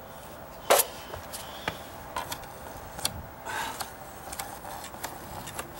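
Metal putty knife scraping and tapping on a patched deck stair tread, knocking down high edges in the patch. A sharp click about a second in, then lighter clicks and a short scrape.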